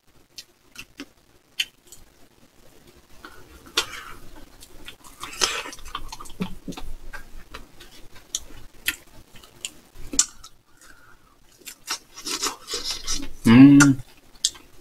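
Metal forks clicking and scraping against dishes as cake is eaten, in many short, irregular taps, with a brief voiced sound near the end.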